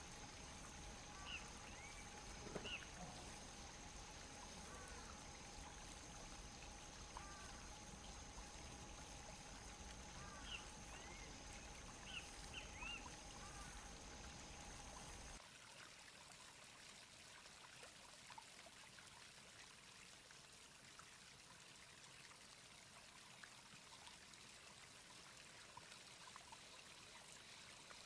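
Near silence: faint outdoor ambience of soft steady hiss. In the first half there are a few short, faint chirps over a thin steady tone. About halfway through the sound cuts to a quieter, even hiss.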